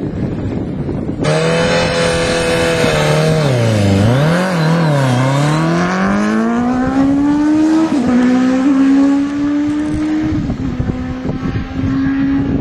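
Suzuki Hayabusa's inline-four engine making a quarter-mile drag run. From about a second in, the revs are held steady, then drop and climb twice in quick succession, then rise steadily for several seconds before levelling off near the end.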